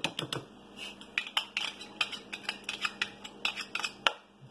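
A spoon tapping and scraping against a plastic mixing bowl as ingredients are spooned into raw chicken for a marinade. It is an irregular run of light clicks and clinks, several a second, with a sharper tap near the end.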